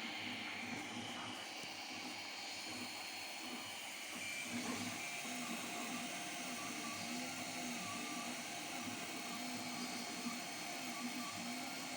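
3D printer printing: its stepper motors whine in short rising and falling tones as the print head moves back and forth, over the steady hiss of its cooling fans.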